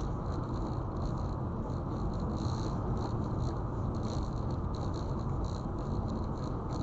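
Steady road and tyre noise of a car driving along the highway, with faint, irregular light rattling over it.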